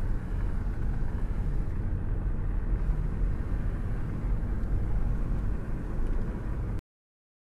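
Steady low rumble of a car's engine and tyres on the road, heard from inside the moving car, cutting off abruptly near the end.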